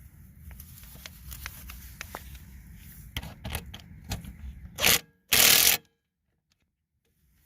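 Tool-handling clicks and scrapes, then two short loud bursts of a cordless impact wrench, about five seconds in, running down the engine mounting bolts on a push-mower deck.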